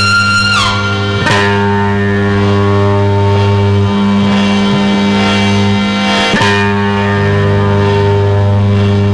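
Harmonium, bass and saxophone trio playing slow droning music: steady sustained chords over held bass notes that shift a few times. A high held note slides down about half a second in, and two sharp accents sound about a second in and again near six seconds.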